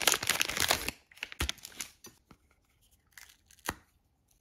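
Foil wrapper of a chocolate wafer block crinkling and tearing as it is peeled open, stopping about a second in. It is followed by a few separate sharp snaps as the block is broken into pieces.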